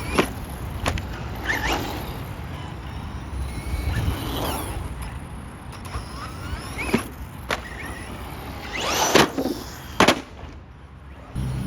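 Electric RC car driven off-road: its motor whines up and down with the throttle over tyre noise, with a series of sharp knocks from jumps and landings, the loudest about nine and ten seconds in.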